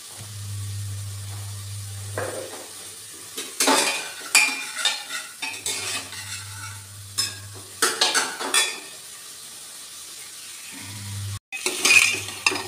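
Metal ladle scraping and clinking against the inside of a pressure cooker while stirring chopped onions frying in oil, with a sizzle under it. The scraping comes in bunches of short strokes, mostly in the middle and again near the end.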